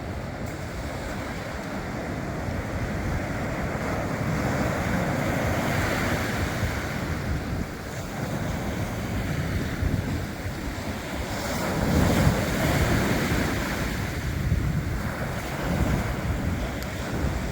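Sea surf breaking on the shore, with wind buffeting the microphone; the wash of the waves swells and fades every few seconds.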